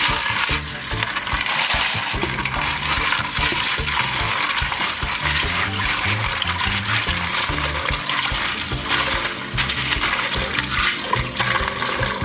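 Kitchen tap running in a steady stream into a plastic tub of red kidney beans in a stainless-steel sink, while a hand rubs the beans under the water to wash them.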